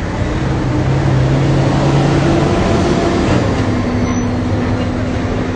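Loud, steady vehicle rumble with a low hum that shifts in pitch a little past halfway.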